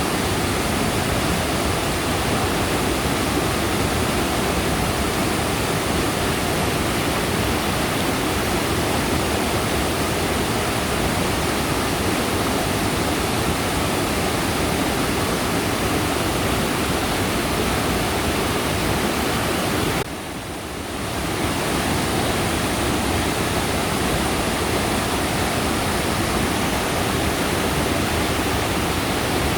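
Mountain valley stream rushing steadily, with a brief dip in level about two-thirds of the way through.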